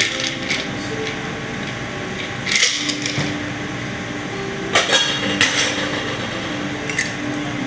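Bar tools and glassware handled on a bar counter: a mixing glass and strainer set down, with a few sharp knocks and clinks spread through, over a steady room hum.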